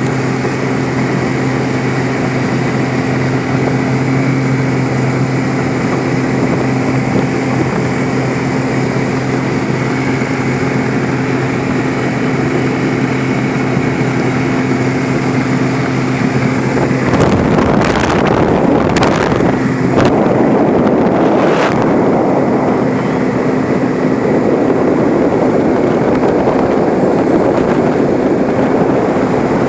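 Yamaha 40 hp four-stroke outboard running under way with a steady engine drone. About 17 seconds in, a louder rush of wind and water takes over, with several sharp knocks over the next few seconds.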